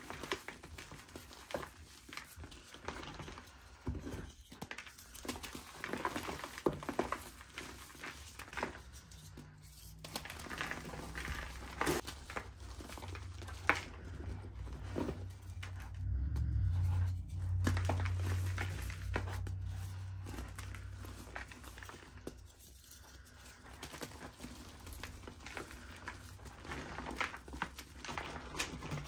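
Hands crushing and crumbling dry grey reform chunks in a plastic bucket, with dense, irregular crunching and crackling as the pieces break and the powder runs through the fingers. A low hum rises about halfway through, lasts a few seconds and fades.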